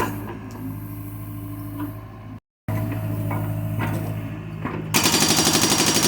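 John Deere excavator's diesel engine running steadily, with occasional clanks and knocks from the machine working. The sound drops out briefly partway through. About five seconds in, a loud, rapid, evenly paced rattle starts up.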